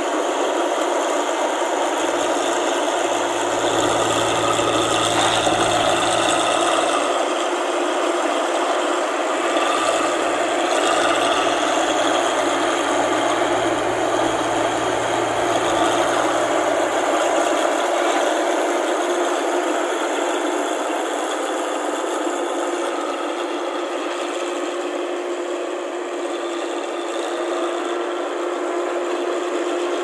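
Tracked rice combine harvester cutting paddy, its engine and threshing machinery running steadily under load with a constant hum. It grows slightly fainter in the second half as the machine moves away.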